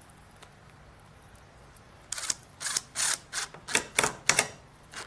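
A quick run of sharp clicks and clacks, about ten in three seconds, starting about two seconds in after a quiet stretch.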